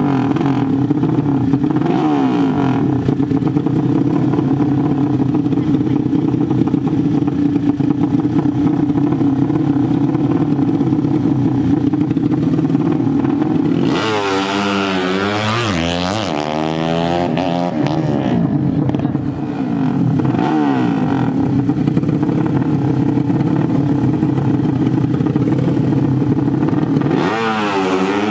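Two 150 cc 'sleep engine' (horizontal-cylinder) drag-bike engines running loud and steady side by side at the start line, held at high revs, with the pitch sweeping up and down about halfway through and again near the end.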